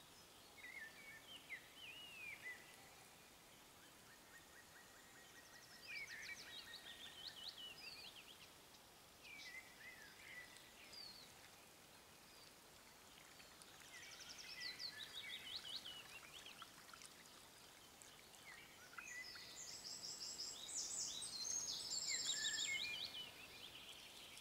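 Songbirds singing short chirping phrases every few seconds over faint background hiss, the loudest phrases near the end.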